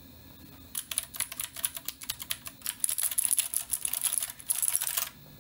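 Rapid, irregular keystrokes on a Keychron Q3 mechanical keyboard, starting about a second in and stopping shortly before the end. The keys are pressed while testing a liquid-damaged board that gives no input.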